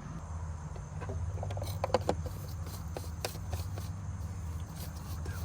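A few light clicks and taps from parts being handled, over a steady low hum.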